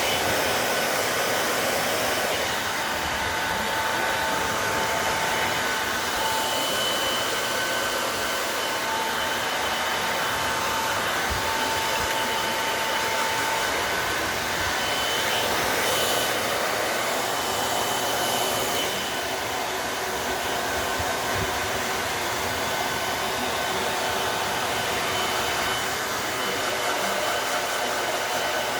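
Pet dryer blowing air steadily into a dog drying box, an even rushing sound with a faint high hum that comes and goes.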